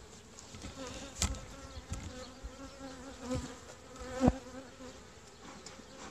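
Honeybees buzzing in flight close by, a wavering hum that rises and falls as they circle, from a few agitated bees. Several sharp knocks cut through it, the loudest about four seconds in.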